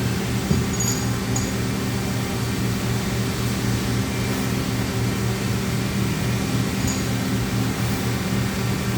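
Steady mechanical hum of running machinery, with a constant low pitched drone and no change throughout.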